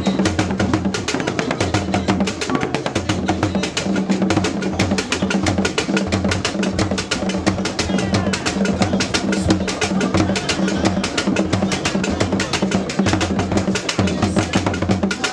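Traditional Akan drum ensemble playing a fast, dense rhythm for the priests' akom dance. A deep barrel drum sounds repeated low strokes under rapid higher drumming.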